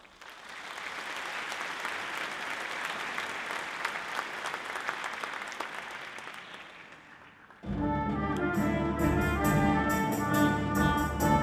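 Audience applauding for about seven and a half seconds, tailing off slightly, then a wind orchestra starts playing suddenly: sustained brass and woodwind chords with percussion strikes.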